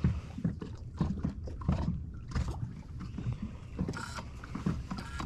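Irregular knocks, bumps and rustling of handling on a small fishing boat, over a low steady hum.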